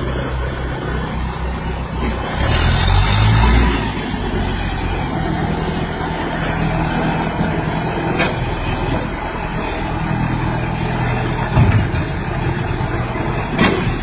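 Tractor engine running steadily, louder for a moment about two seconds in, with a couple of sharp clicks later on.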